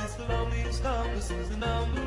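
Background music: a song with a wavering sung melody over a steady bass line.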